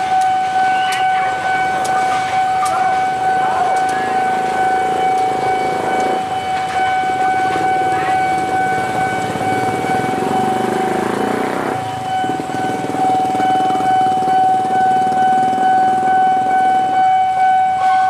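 Railway level-crossing warning alarm sounding for an approaching locomotive: one steady, piercing electronic tone that pulses quickly. A broader rumble builds underneath and cuts off suddenly about twelve seconds in.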